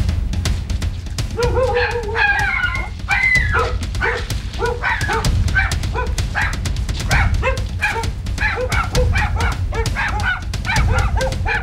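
Small dogs barking in a rapid run of high yaps, several a second, starting about a second in, the first calls longer and wavering. A continuous low rumble runs beneath.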